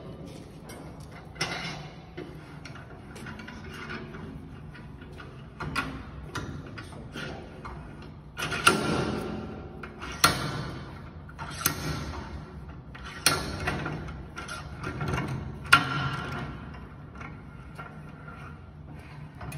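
The stainless steel screw clamps on a steam-kneading machine's lid are turned by hand and tightened, sealing the lid against steam leaks. They give several short bursts of metallic scraping and clicking over a steady low hum.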